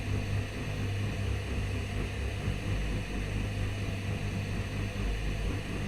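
Steady low droning rumble with an even hiss over it.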